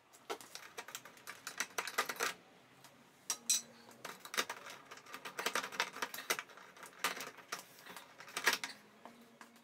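Irregular runs of sharp clicks and taps as a T8 plug-and-play LED tube is handled and seated in the lampholders of a ceiling fluorescent fixture, plastic and metal knocking together. The loudest knock comes near the end.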